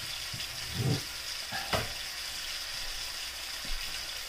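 Marinated pork chunks sizzling steadily as they brown in a hot nonstick pan, with a low thump about a second in and a sharp knock just before two seconds.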